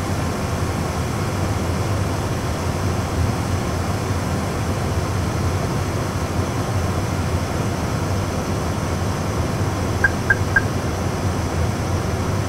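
Steady low hum and rumble of an Airbus A320 full flight simulator's cockpit, with no rising whine. Three quick high blips come about ten seconds in.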